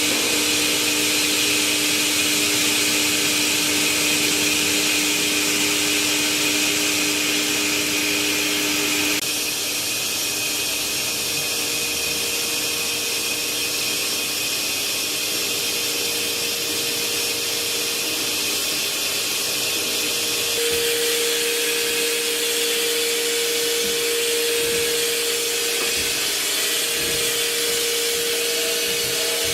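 Spinner PD 32 S CNC lathe running: a steady mechanical whir with a humming tone, its pitch and tone changing abruptly about nine and about twenty seconds in.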